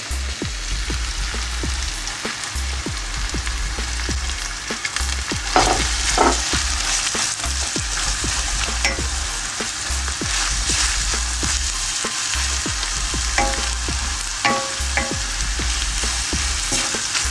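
Minced meat and onions sizzling in a frying pan as they are stirred, the cooking water nearly boiled off. A steady sizzle with a few short, sharper sounds.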